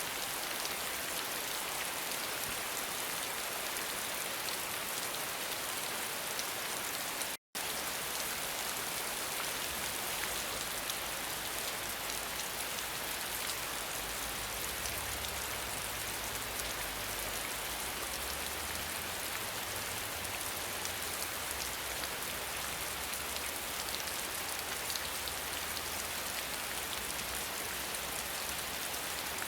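Steady rain falling: a dense, even hiss of drops. It cuts out to silence for an instant about seven and a half seconds in, and a faint low rumble sits under it in the second half.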